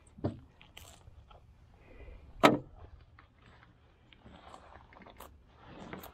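Scattered knocks and clicks from a fish and net being handled in a small boat, with one sharp knock about two and a half seconds in as the loudest.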